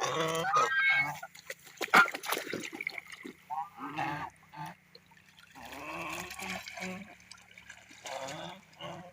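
Domestic geese honking in repeated bursts of calls, with water splashing and trickling between them.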